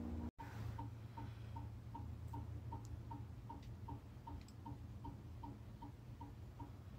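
Newly installed solar-powered roof vent fan making a steady ticking like a fast clock, a little under three ticks a second. The ticking is soft and not terribly loud.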